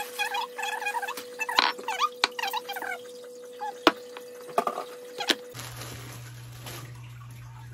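A plastic bread bag rustling, with light knocks and taps as items are handled on a kitchen counter. Over the first few seconds a repeated high chirping sounds in the background. About five and a half seconds in, the sound changes abruptly to a low steady hum.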